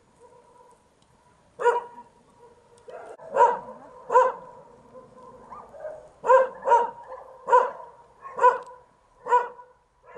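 A dog barking repeatedly, about eight short barks at irregular intervals, some in quick pairs.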